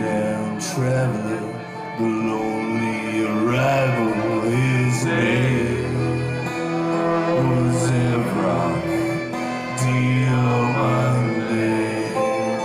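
Live band with brass playing a slow song in long held chords that change every second or two.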